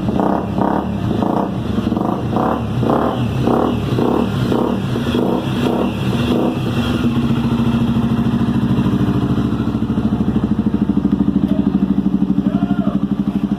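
Honda XRE 300's single-cylinder engine breathing through a full aftermarket exhaust system, revved in quick repeated throttle blips about twice a second. About seven seconds in it settles to a steady, evenly pulsing idle.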